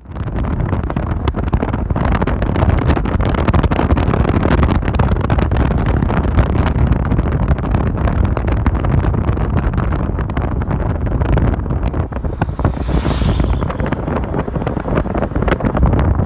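Strong wind buffeting the microphone: a loud, steady low rumble with crackling, and a brief higher hiss about thirteen seconds in.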